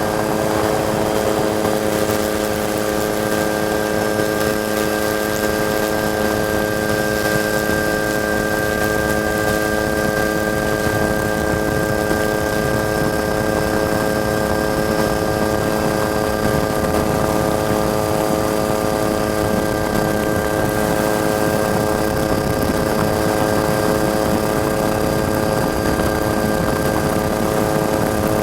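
Helicopter running at a steady cruise, heard from on board: a constant drone of fixed engine and gearbox tones over rotor and wind noise, with no change in pitch.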